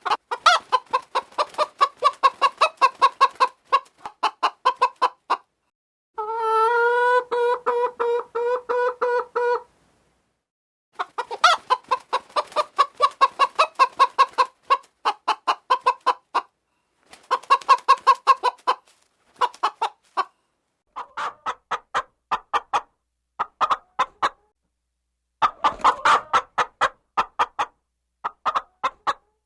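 Chickens clucking in quick runs of short clucks, several separate bursts with dead silence between them. About six seconds in comes one long held call lasting about three and a half seconds.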